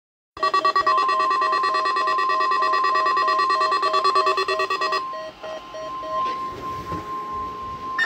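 Several NOAA weather alert radios sounding their alarm for a Required Weekly Test: rapid electronic beeps in several pitches, about four a second, over the steady 1050 Hz warning alarm tone of the weather radio broadcast. Most of the beeping stops about five seconds in, one beep goes on about a second longer, and the steady tone continues.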